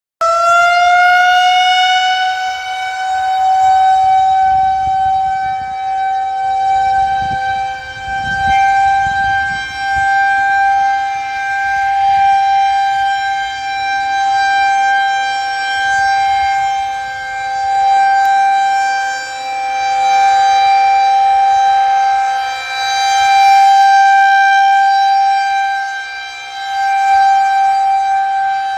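Federal Signal 2001-130 outdoor tornado warning siren sounding a steady wail for a tornado warning. It comes in abruptly and climbs quickly to a held pitch, then swells and fades every few seconds as the rotating siren head sweeps past.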